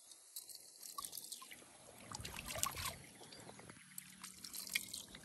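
Hot-spring water trickling and dripping, with many small irregular splashes.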